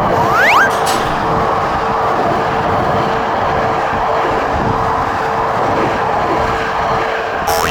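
A train running through a railroad crossing, its wheels and motors making a steady rumble, while the crossing's warning bell rings on in a quick, even pulse.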